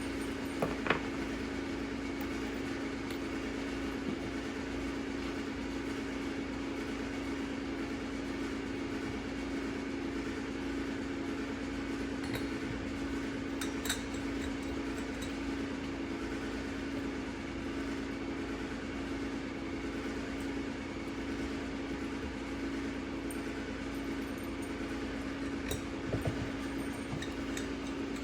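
Steady mechanical hum holding one pitch throughout, like a running motor, with a few faint clicks and clinks about a second in, midway and near the end.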